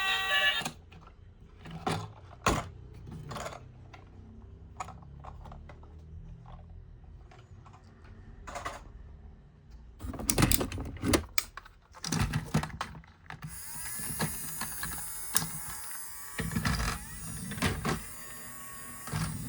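Plastic toys and their packaging being handled: clicks, knocks and rattles come in clusters over a faint low hum. A steady high hiss with a light whirr comes in during the last few seconds.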